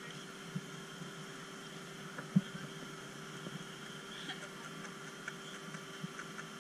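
Steady mechanical hum carrying one steady tone, with scattered faint clicks and a single short knock about two and a half seconds in.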